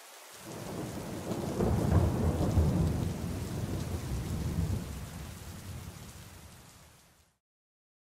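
Thunder rolling over the steady hiss of rain. The deep rumble builds over the first two seconds, then slowly dies away, and everything cuts off about seven seconds in.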